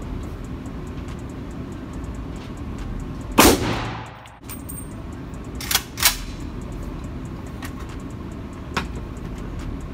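Draco AK-pattern pistol firing single shots in an indoor range, each ringing briefly off the walls: one loud shot about three and a half seconds in, two more in quick succession about two seconds later, and a fainter shot near the end.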